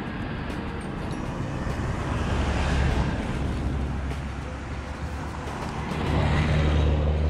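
A motor vehicle's engine running with a steady low hum, with road noise that swells about two seconds in and grows louder again near the end.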